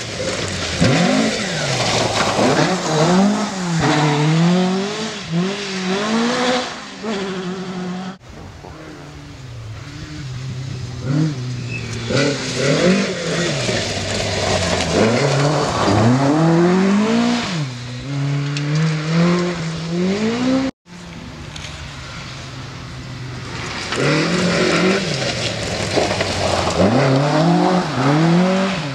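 Ford Escort Mk1 and Mk2 rally cars at speed on a rally stage, their engines revving hard, climbing and dropping back again and again through gear changes and lifts. Several cars pass in turn, with two sudden breaks about 8 and 21 seconds in.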